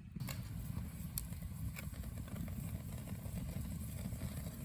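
Lentils bubbling at a boil over a campfire: a steady low bubbling rumble with a couple of sharp pops.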